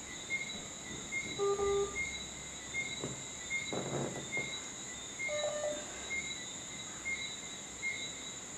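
Insects chirring in a steady pulsing rhythm, about one and a half pulses a second, with a few faint, brief voice-like sounds in between.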